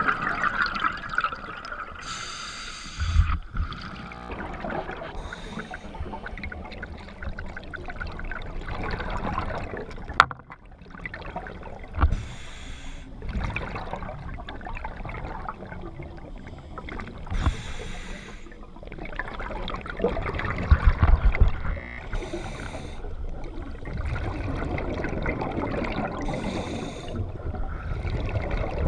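Scuba diver breathing through a regulator underwater, the exhaled bubbles gurgling out in a rush every few seconds, muffled through the camera's underwater housing.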